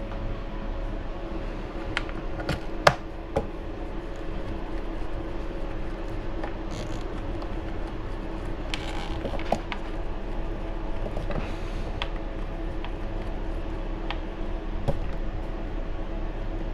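Small metal screws being handled and driven with a hand driver into a metal mount on an RC buggy chassis, giving scattered sharp clicks and ticks, the loudest about three seconds in. A steady hum runs underneath.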